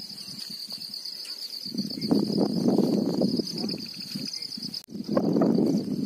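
Field insects trilling steadily at a high pitch, under a low rushing noise of wind on the microphone that swells and fades in gusts. Everything drops out for a moment about five seconds in.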